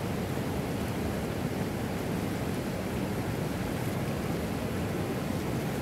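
Small river's water rushing steadily.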